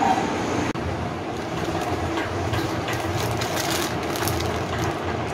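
Steady background rumble and hiss, broken by a brief dropout about a second in where the recording cuts.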